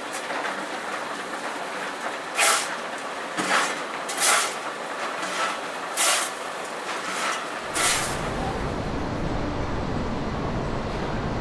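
Loose green PVC granules rattling in about six short, sharp swishes as they are scooped and shifted by hand beside a plastic jerrycan. Near eight seconds this gives way to the steady rumble of the PVC pipe extrusion machinery running.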